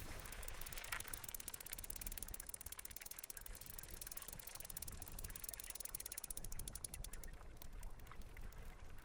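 Mountain bike freehub ticking rapidly and evenly while the bike coasts, over a low rumble of the tyres rolling on the trail.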